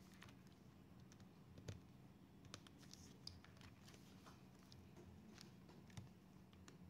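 Very faint, scattered clicks and light scrapes of a small hand tool and fingers working on a laptop's internal parts by the hinge and display cable, over a low steady hum.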